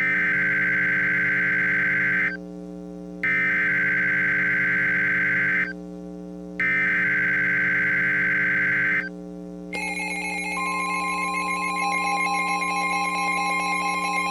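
Emergency Alert System header: three bursts of SAME data tones, a harsh warbling electronic screech of about two and a half seconds each, a second apart, announcing the severe thunderstorm warning that follows. About ten seconds in, the steady attention alarm tone starts and continues, over a constant background hum.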